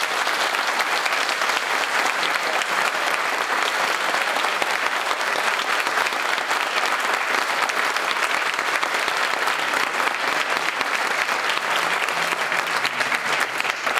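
Audience applauding: loud, dense, steady clapping from a full room.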